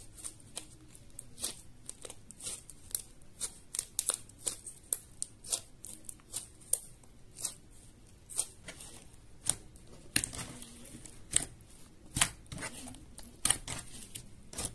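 White glue-and-activator slime being squeezed and kneaded by hand, giving irregular sharp little pops and clicks, a few each second.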